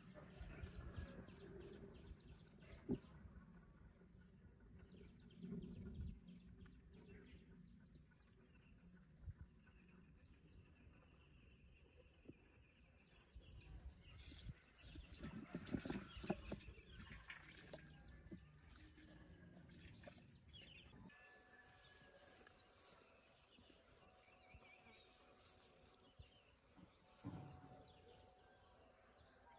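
Near silence: faint outdoor background with scattered soft clicks and knocks, busier for a few seconds around the middle.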